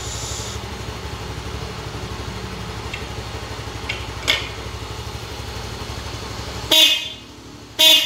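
Aftermarket motorcycle disc horn sounded in two short, loud blasts about a second apart near the end. Before them there is a low, steady drone, which stops as the first blast sounds.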